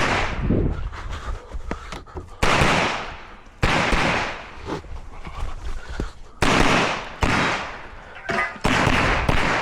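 Pistol shots fired slowly in a timed string, four loud ones spaced one to three seconds apart, each ringing out with a long echoing tail, with a few fainter cracks between.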